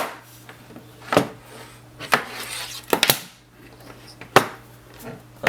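Sharp knocks and clanks, about a second apart, as a metal-cased computer power supply is handled and turned over on a table.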